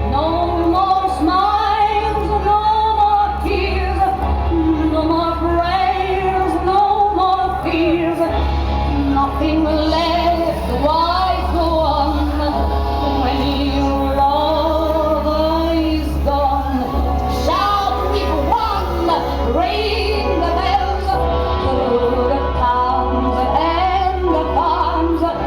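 A woman singing a melody in long, sliding held notes, over a steady low hum.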